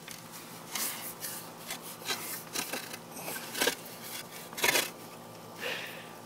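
Irregular scraping and rubbing of a wooden shovel handle as a pig noses and bites at it, with the loudest scrapes a little past the middle.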